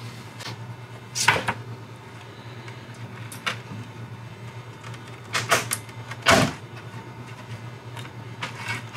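Scattered knocks and taps of a knife and hands against a metal sheet pan as a frog's legs are cut apart. The loudest knock comes a little past six seconds in, over a steady low hum.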